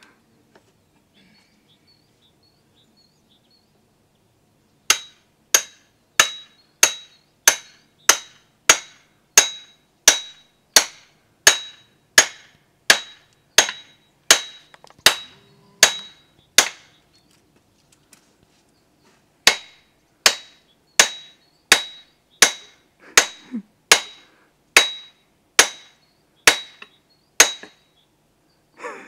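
Sharp metallic strikes in a steady, even rhythm, about three every two seconds, each with a brief high ring. They come in two long runs with a pause of about three seconds between them.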